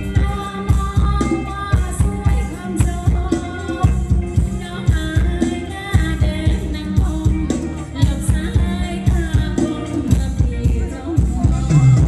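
Live Thai ramwong dance music played loud by a band, with singing over a steady, evenly repeating beat.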